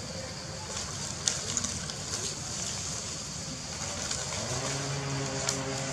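Outdoor ambience with a steady high hiss and a few sharp clicks in the first half. About three-quarters of the way through, a low, steady motor drone starts and holds at one pitch.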